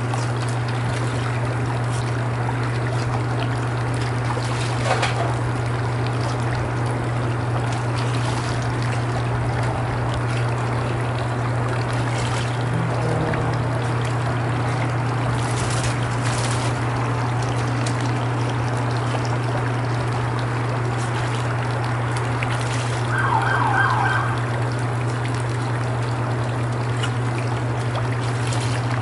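Steady trickling, splashing pool water over a constant low hum, with a few sharp splashes as a dog snaps at and dips its head into the water. A brief run of short chirps comes near the end.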